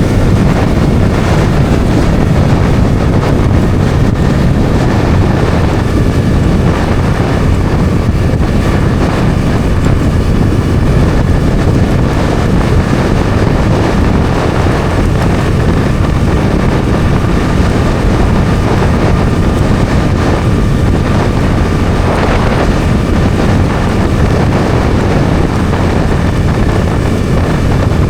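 Bajaj Dominar 400's single-cylinder engine running steadily at cruising speed, with wind rushing over the microphone.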